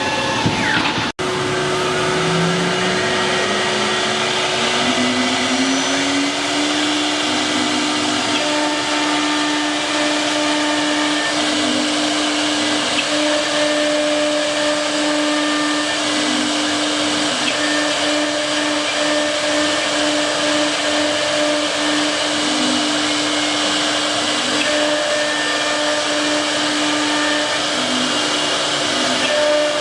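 4.5 kW CNC wood router spindle spinning up: a whine rises in pitch over about five seconds, then holds steady, over a constant rushing noise.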